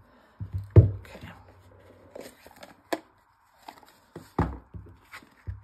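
Handling noise on a desk: a few sharp knocks and light rustling as the boxed label printer and a card are picked up and moved, the loudest knocks about a second in and again past the four-second mark.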